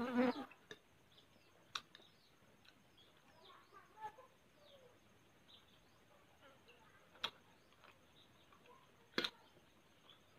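Small birds chirping steadily in the background, with a few sharp clicks of a metal spoon against a glass bowl during eating. The loudest click comes near the end.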